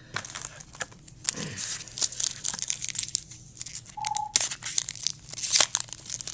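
Trading card pack wrapper being torn open and crinkled by hand, with irregular crackles and sharp snaps.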